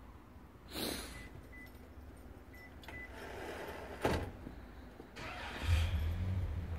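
Two short brushing or rustling noises, then a steady low engine hum that starts about two-thirds of the way in.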